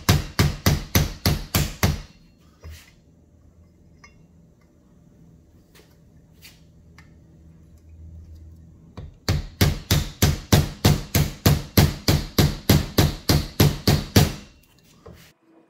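Hammer rapidly tapping the top of a PVC pipe that drives a new ball bearing down onto a pool pump motor's shaft, about six blows a second. A short run of taps, a pause with a few single knocks, then a longer run of taps from about nine seconds in that stops shortly before the end.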